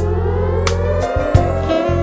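Music: held bass and chord notes with a couple of sharp drum hits.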